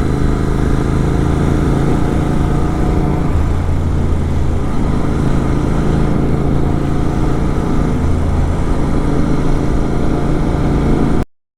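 Superbike with a full-system exhaust running at a steady cruise, its engine note holding nearly constant. The sound cuts off abruptly near the end.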